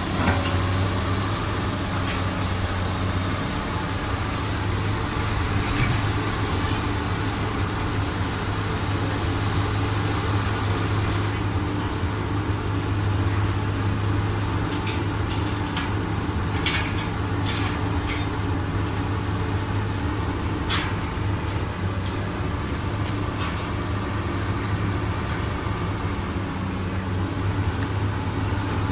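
Heavy machinery engine running steadily, with a few sharp knocks about seventeen and twenty-one seconds in.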